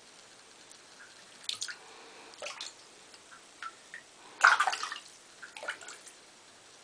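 A Bengal cat pawing at shallow water in a bathtub: a few short splashes and drips about a second apart, the loudest about halfway through.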